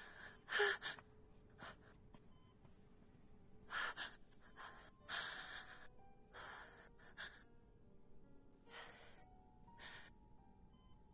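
A woman's gasping breaths, several short separate gasps spread over the seconds, over faint soft background music.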